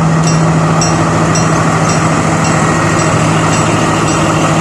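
Diesel engine of a Sri Lanka Railways train power car running steadily as a loud, even drone with a strong low hum. A faint high ticking repeats about one and a half times a second.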